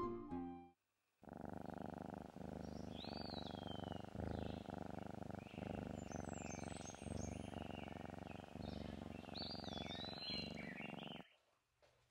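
Plucked background music fades out in the first second. Then a domestic cat purrs steadily, the purr swelling and easing about once a second with its breathing, with faint high chirps above it, and it stops abruptly near the end.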